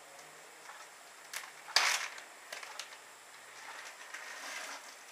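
Plastic snap-lock bag of hops crinkling and rustling in the hands as it is opened and tipped out, with scattered sharp crackles, the loudest about two seconds in.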